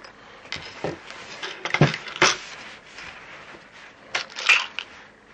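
Handling noise: a few sharp knocks and clicks with cloth rustling as a metal air pistol and a small tin are moved across a table and into a padded soft gun case. The loudest knocks come about two seconds in and again near the end.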